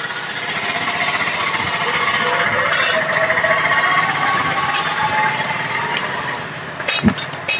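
Steady mechanical noise from a machine running, with a faint whine that drifts in pitch midway. A few sharp clicks of metal parts are handled on top of it.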